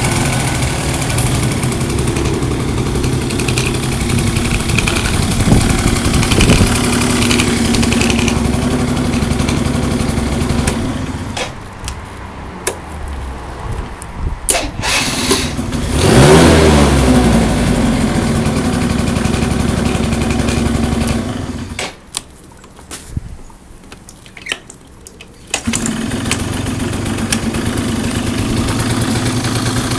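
Benelli Quattronove 49x scooter's small two-stroke engine idling, then cut off about eleven seconds in, with a few clicks while it is off. It is started again about five seconds later with a rising rev and runs, is cut off once more, and catches again near the end to idle on.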